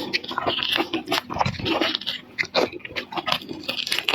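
A person chewing and crunching seafood close to the microphone, a run of irregular crunches and clicks.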